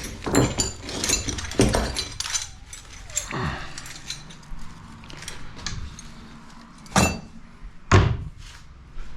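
Metal parts of a broken bench vise clinking and knocking as they are handled and set down, with quick clicks in the first couple of seconds and two heavier thunks about seven and eight seconds in.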